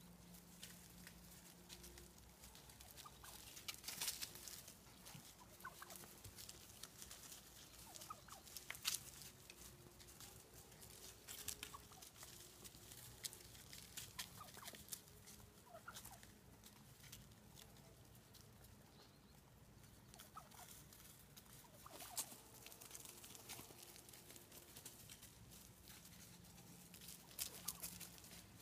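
A flock of wild turkeys feeding on seed: quiet, scattered taps of beaks pecking at the ground and leaf litter, with a few soft, short turkey calls between them.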